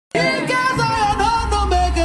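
Music with singing: a voice or melody line over a steady deep bass note that comes in less than a second in.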